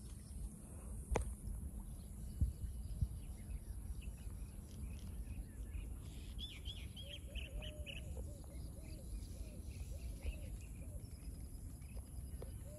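Birds calling: a low hooting call repeated in a series of short notes through the second half, with higher chirping in the middle. A steady low rumble runs underneath, and three sharp knocks come in the first few seconds.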